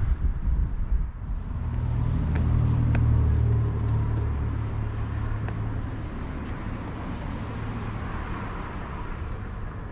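A motor vehicle passing: a low engine rumble swells about a second and a half in, peaks, then fades away over steady outdoor background noise.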